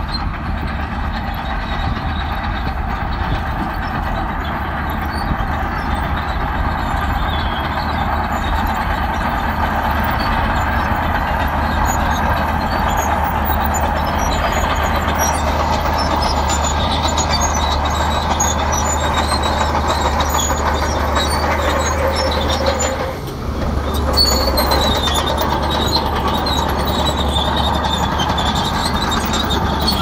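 Shantui crawler bulldozer working: its diesel engine running steadily under load, with scattered short squeaks from its steel tracks. The engine note dips briefly about three-quarters of the way through, then picks up again.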